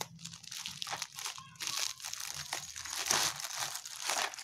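A plastic courier bag crinkling and rustling as it is snipped open with scissors and a plastic case is slid out of it, with a few sharp clicks in the first second.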